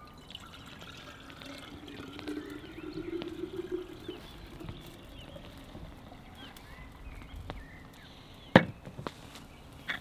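Red wine poured from a large glass bottle into a small glass carafe, the stream running steadily into the jug as it fills. A single sharp knock comes near the end.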